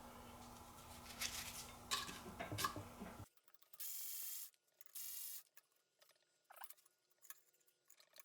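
Faint scattered clicks, taps and scrapes of hand work on the disassembled Ford 4.0L SOHC V6's parts, over a low hum. Partway through come two short hissing bursts, each about half a second long.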